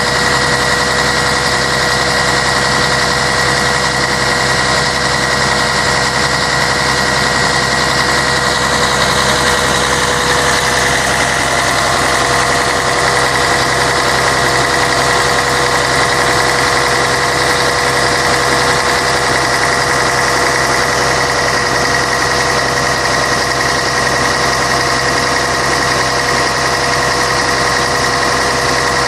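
Scania K113 bus's 11-litre six-cylinder diesel engine running steadily, with a constant whine over the engine note that shifts slightly about ten seconds in.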